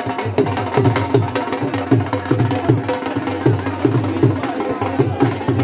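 Dhol drums beaten in a quick, steady rhythm.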